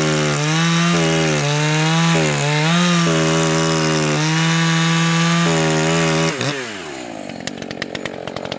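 Echo CS-590 two-stroke chainsaw cutting a log at full throttle, its high-speed screw set rich, so the engine note wavers with a burble that clears up as the saw is pressed into the wood. About six seconds in the throttle is released and the revs fall away to a ticking idle.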